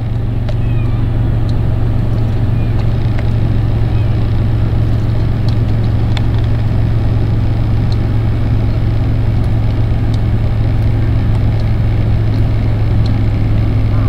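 Engine idling: a steady low hum that holds without change, with a few faint gull calls above it.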